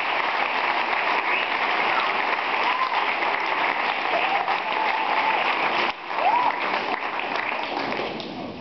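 Audience applauding, with a few voices calling out over the clapping; the applause thins out near the end.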